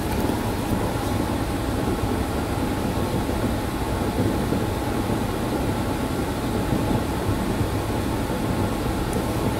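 Steady ventilation noise: a low rumble and rushing air with a faint steady tone, unchanging throughout.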